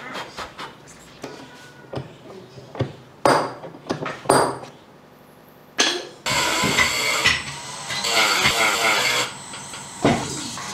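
Woodworking: a series of sharp knocks and taps on wood, then from about six seconds in a power tool runs with a loud, harsh noise.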